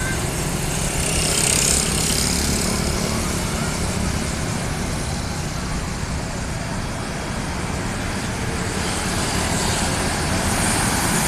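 Road traffic passing close by: a steady engine rumble with tyre and road noise, swelling about a second in and again near the end.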